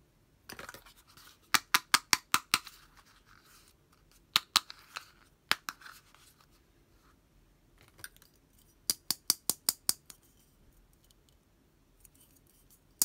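Sharp plastic clicks and taps from handling a small pink plastic toy perfume bottle. They come in quick runs of about five clicks a second: a run of six early on, a pair about four and a half seconds in, another pair a second later, and another run of six about nine seconds in.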